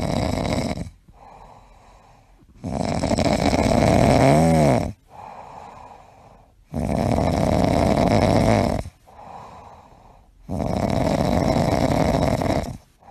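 Cat snoring: long, loud snores about every four seconds, with quieter breaths between them.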